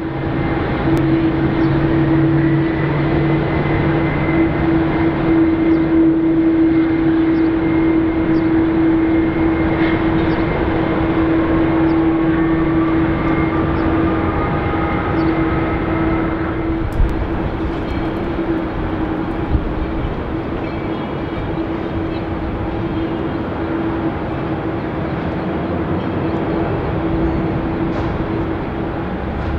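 Airbus A330-300's General Electric CF6 turbofan engines running on the ground: a steady hum with a high whine over it. Near the middle a second whine slowly rises in pitch for a few seconds.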